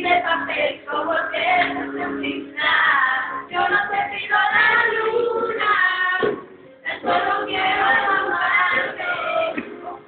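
Women singing a pop song loudly over music, with a short break about six seconds in.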